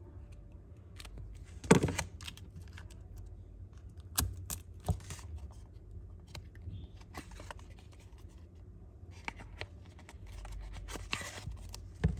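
Close-up handling of Zippo lighters and their boxes on a table: scattered clicks and knocks, the loudest about two seconds in, then soft rustling and scraping near the end.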